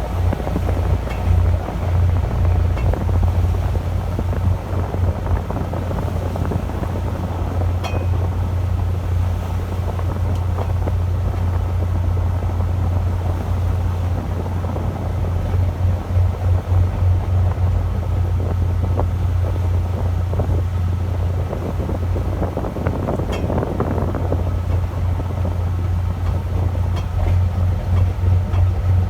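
Fishing boat's engine running steadily, a low hum with a slight pulse, under a wash of wind and water noise.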